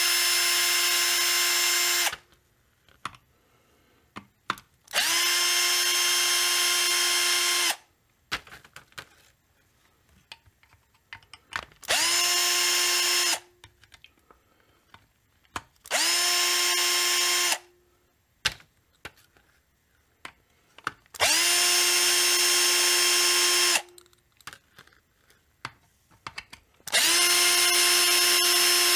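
Cordless drill-driver running in short bursts at a steady pitch, six times, each about one and a half to three seconds long, backing screws out of a chainsaw's crankcase. Small clicks of handling fall between the runs.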